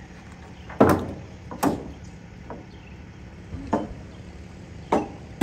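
Ratchet tie-down strap being worked over a car's wheel on a flatbed trailer: five sharp metal clacks, about one a second.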